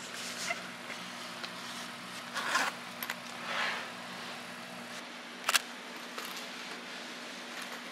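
Nylon crossbody bag being handled: a few short rustles of fabric and a single sharp click about five and a half seconds in, over a faint low hum.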